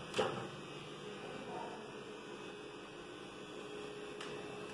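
Kitchen cabinet door clicking once as it is pulled open by its handle, about a quarter second in, over a steady hum; a fainter click comes near the end.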